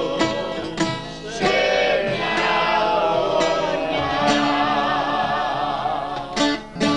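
Several voices singing a Greek song together, accompanied by a bouzouki and acoustic guitars.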